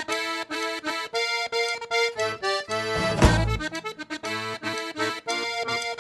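Background music: an accordion-led rumba track played in short, rhythmic chords.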